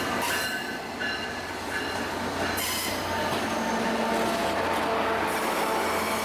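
Caltrain diesel commuter train rolling into the station, its wheels squealing on the rails in thin high tones that come and go over a steady low rumble.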